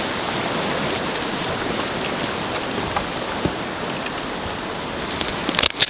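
Rushing whitewater of a river rapid: a steady hiss of churning water that eases slightly, with a few sharp knocks just before the end.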